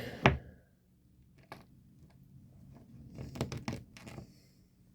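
Handling of a leather sheath and small copper rivet parts at a workbench. There is a sharp click near the start and another about a second and a half in, then a run of small crinkly clicks and rustles.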